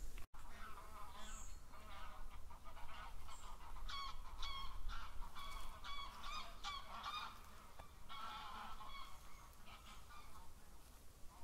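Geese honking, a long run of short repeated calls, with a few faint thin high whistles.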